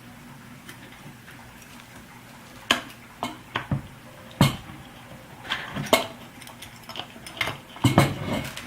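Metal C-clamps clinking and knocking as they are handled and fitted onto a mold: a series of sharp clanks and clicks, several in quick succession near the end.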